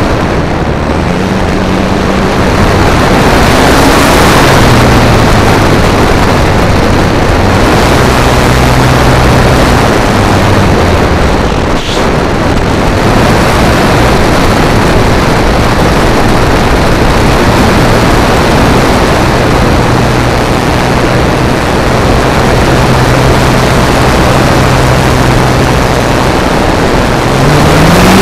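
Motor and propeller of a model airplane in flight, heard from a camera mounted on the plane, under heavy wind rush. The motor's pitch shifts up and down with the throttle and rises near the end.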